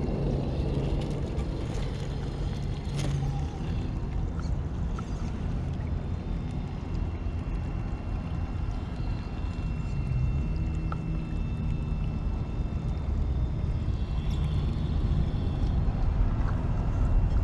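Trail Honcho RC rock crawler's electric motor and drivetrain whining in short spurts as it crawls over the course, under a steady low rumble.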